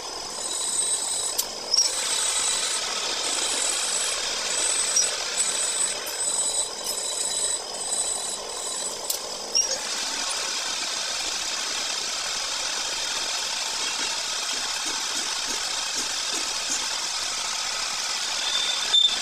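Metal lathe running with its chuck spinning, turning a metal workpiece. Scattered clinks and knocks in the first half, then a steady cutting noise from about ten seconds in as the tool takes off chips.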